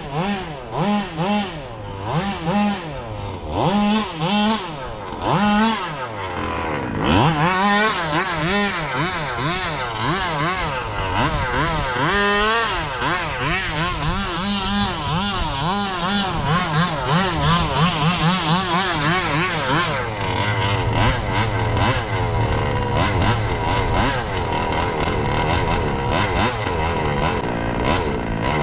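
Small two-stroke petrol engine of a 1/5-scale Baja RC buggy revving. It blips in short bursts about once a second, then runs with revs rising and falling quickly as the buggy drives.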